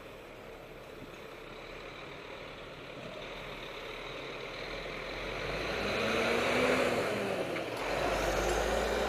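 Road vehicle noise that builds and swells about two-thirds of the way in, with a faint engine tone rising and falling as it peaks.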